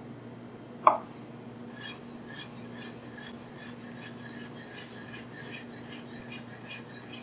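Chef's knife chopping red pepper into a fine dice on a cutting board: a steady run of knife strokes, about two or three a second, that starts about two seconds in. It is preceded by a single sharp knock about a second in.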